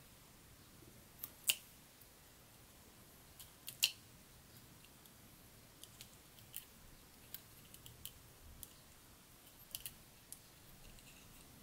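Craft tweezers and a small paper die-cut being handled: faint, scattered light clicks and ticks, with two sharper clicks in the first four seconds.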